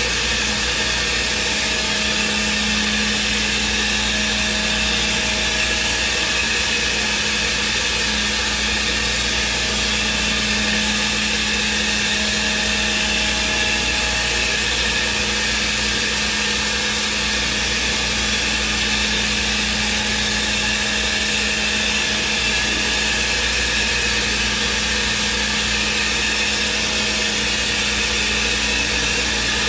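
Thermwood five-axis CNC router running as it machines a block, with a steady hum and hiss from its spindle and machine.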